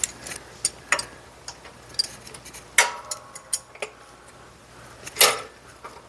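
Hand tools on metal: small metallic clicks and ticks as needle-nose locking pliers (vise grips) are handled and set on the pinsetter's spring, with a ringing metal clink about three seconds in and a louder clink about five seconds in.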